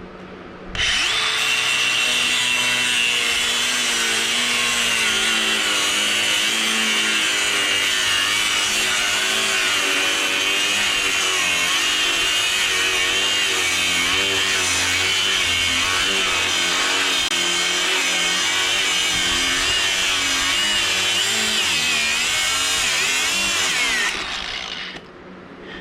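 Power tool cutting through a steel frame tube, running steadily under load with a high whine that wavers as the cut goes on. It starts about a second in and winds down near the end.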